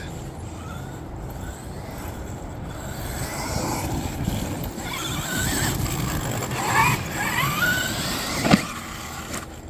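Traxxas XRT RC monster truck running, a steady rushing noise with its electric motor whining up in pitch a few times, and a single sharp knock about eight and a half seconds in.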